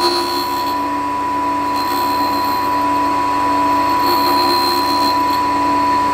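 D-bit tool and cutter grinder running steadily, its wheel grinding a flute of an end mill, with a steady whine and a higher tone that comes and goes a few times as the cutter is worked against the wheel.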